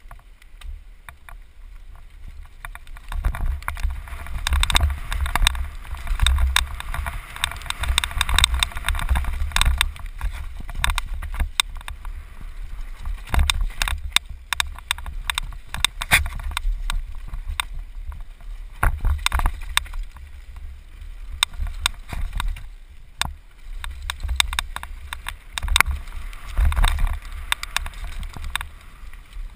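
Downhill mountain bike ridden fast down a dirt and rocky trail, heard from a helmet camera: wind rumbling on the microphone, tyre noise on dirt and stones swelling and fading with speed, and frequent sharp clicks and clatters as the bike rattles over bumps.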